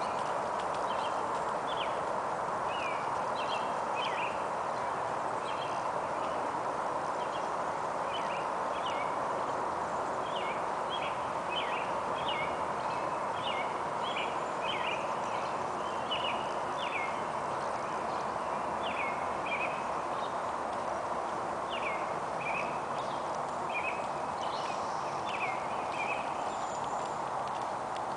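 Horse's hooves on soft sand arena footing as it is ridden around at a distance, under a steady outdoor hiss, with small birds chirping in short, irregular calls.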